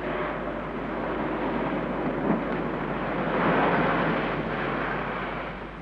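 A motor vehicle running, a steady rushing engine and road noise that swells a little past the middle.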